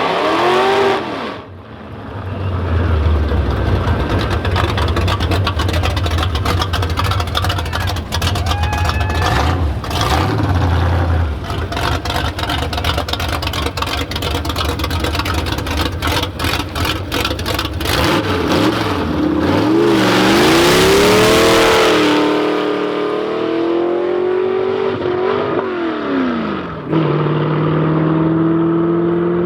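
Drag-racing cars' engines revving and accelerating, the pitch swinging up and down, with a long run of rapid crackling exhaust pops in the middle. About twenty seconds in a loud hissing surge comes with a rising engine pitch as a car pulls away, and near the end another engine cuts in with a steady tone.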